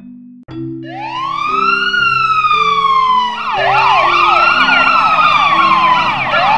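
Electronic emergency siren starting suddenly: a slow wail rising and falling, with a fast yelp joining in about three seconds in. Underneath it, low steady notes step from pitch to pitch like a tune.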